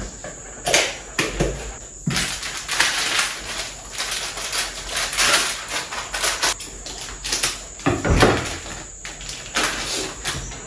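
Plastic grocery packaging rustling and crinkling as it is handled, with a few soft knocks of items set down on a counter.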